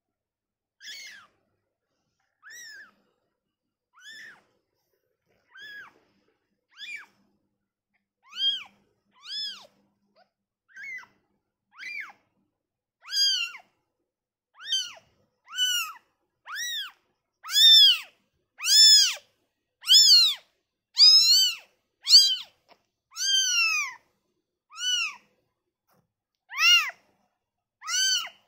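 Newborn kitten mewing over and over after being taken from its mother: high-pitched cries that rise and fall in pitch, about one a second. The cries are faint at first and grow much louder about halfway through.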